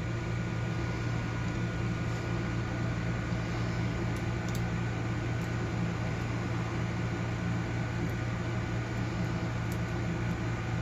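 Steady low background hum with a faint thin whine above it, unchanged throughout, and a few faint light ticks.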